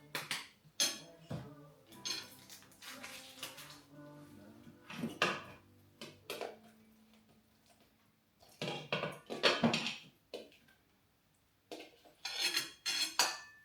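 Cutlery clinking and scraping against plates while people eat, in scattered clatters, quieter in the middle stretch.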